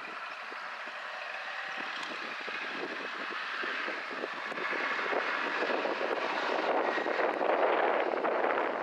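John Deere 3050 tractor running a boom-mounted flail hedge cutter against a hedge across the field: a steady, rough mechanical drone that grows louder over the last few seconds.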